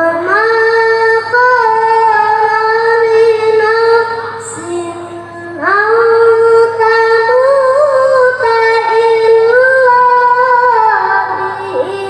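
A boy qari reciting the Quran in the melodic tilawah style into a microphone over a PA system: long, ornamented, high held notes. About five seconds in comes a short, quieter, lower phrase before the next long line begins.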